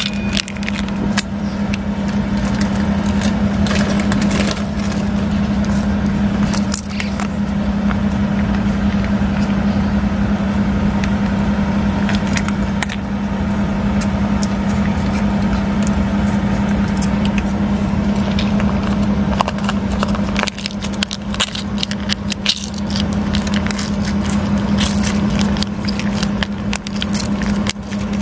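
A steady low machine hum runs throughout, under scattered small clicks and crackles from a cat eating wet food out of a steel bowl and a plastic food pouch being squeezed and handled.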